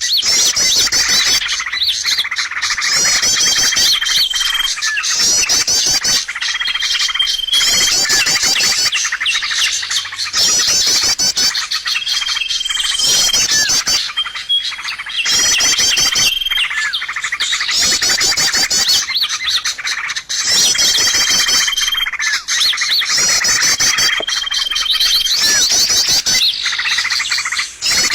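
Bird-lure recording: a dense chorus of small songbirds chirping and twittering, with rapid high trills and a short held whistle that repeat every few seconds, as in a looped lure track.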